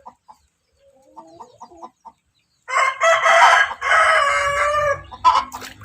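Rooster crowing once: a long, loud call in two parts beginning near the middle, after a few faint short sounds.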